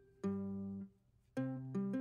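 Background music: a light plucked-string tune. A chord sounds about a quarter second in, then a short pause, then a few quicker notes.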